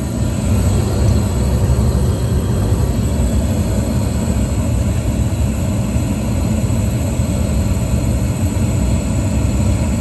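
York gas package unit firing on first-stage (low fire) heat, its gas burners running with a steady low rumble.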